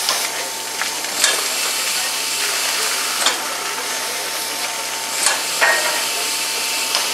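Steam hissing steadily from the standing DB class 01 steam locomotive 01 150, with a short sharp puff about every two seconds.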